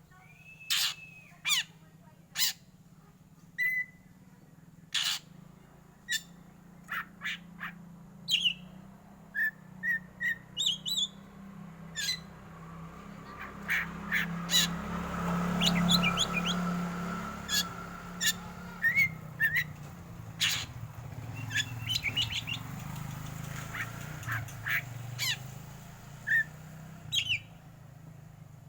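Black magpie-robin (kacer hitam) giving a rapid, irregular series of short, sharp calls and chirps, some sliding briefly in pitch. A low rushing noise swells up in the middle and fades again.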